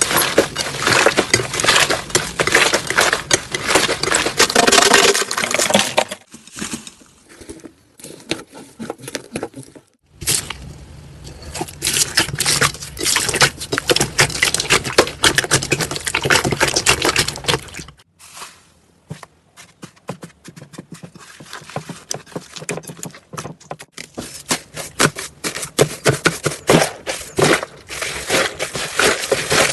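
Slime being squished and pressed by hand, making dense crackling, clicking and popping. It comes in several clips: loud at first, quieter from about six seconds in, loud again from about ten seconds, quieter again around eighteen seconds, and building back up near the end.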